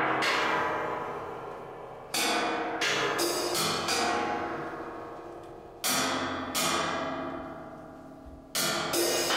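Live struck metal percussion ringing out: loud strikes about two, six and eight and a half seconds in, with a quick run of lighter strikes around three to four seconds, each one slowly dying away.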